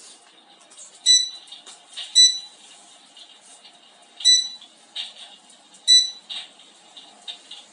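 Electric fireplace's control unit beeping four times, each a short single beep, as its settings are changed by remote or panel buttons. Faint irregular clicks sound in between.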